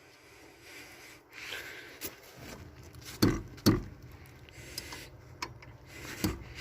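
Wrench tightening a brake caliper bolt: faint scraping and rubbing of metal on metal, with two sharp knocks about three seconds in and another near the end.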